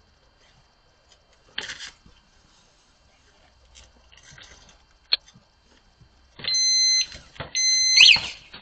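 A few faint knocks and one short sharp clink. Then, about six seconds in, an anti-theft alarm goes off: a loud high steady tone pulsing on and off, switching near the end to a fast up-and-down warble.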